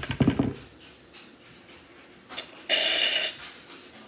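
Aerosol shaving cream can spraying foam: one loud hiss of about half a second, roughly three seconds in. It is preceded by a short rattling knock at the start.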